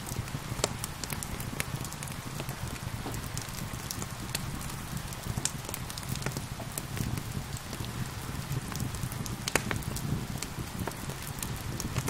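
Wood fire in a fireplace crackling, with irregular sharp pops and snaps, over a steady hiss of falling rain.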